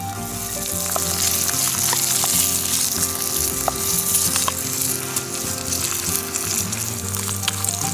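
Sausage and carrots frying in a pot over a campfire: a steady sizzle with frequent small pops and crackles.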